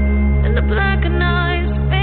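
Background music: a melodic line over sustained bass notes.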